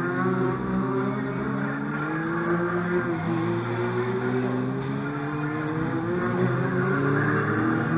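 Stock cars racing round an oval track, several engines revving together, their pitch dipping about three seconds in and then rising again.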